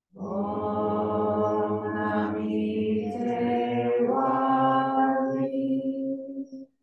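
Several voices chanting together in a slow, drawn-out Buddhist chant, one long sustained phrase that steps in pitch about four seconds in and stops near the end.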